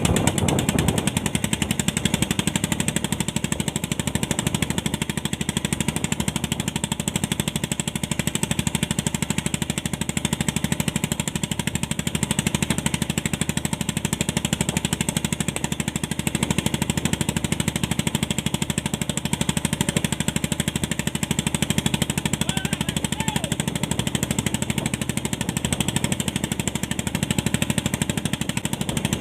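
Fishing boat's engine running steadily, a fast even chugging.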